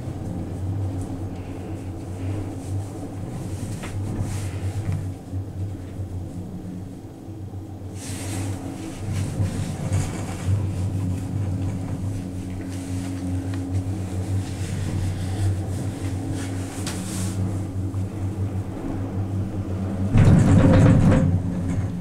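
Ride noise inside a 2005 Doppelmayr eight-seat gondola cabin climbing the line: a steady low hum and rumble. Near the end a louder rumbling clatter lasts about a second and a half, as the cabin runs over a lift tower's sheaves.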